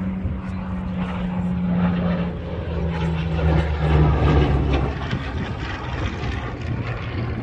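Single-engine propeller fighter flying past, its piston-engine drone loudest about halfway through and dropping in pitch as it goes by.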